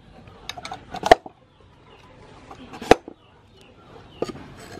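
Knife chopping down through a peeled green papaya onto a wooden chopping board: a few sharp knocks, the loudest about a second in and just before three seconds in, with lighter taps between.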